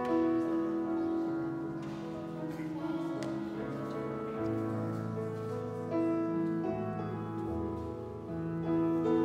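Live worship music from a small band: long held melody notes over slowly changing chords.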